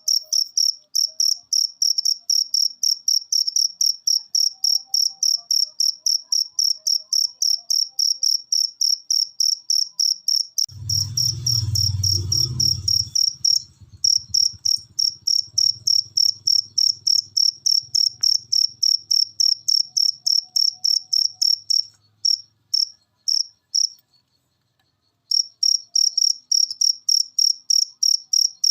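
Cricket chirping steadily at a high pitch, about three chirps a second. A low rumble comes in about eleven seconds in, loudest for the next two seconds, then fades. Near the end the chirping stops for a couple of seconds and starts again.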